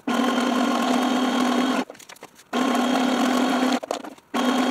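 Electric sewing machine running a zigzag stitch through fabric laid over a card file folder: a steady hum in three runs, stopping twice for about half a second.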